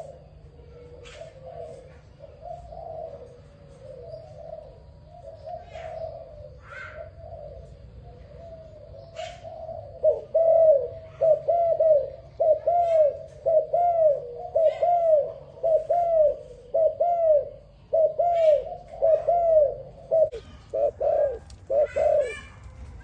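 Dove cooing: soft, run-together coos for about the first ten seconds, then a loud series of short rounded coos in quick succession until near the end. Faint, higher chirps of small birds sound in the background.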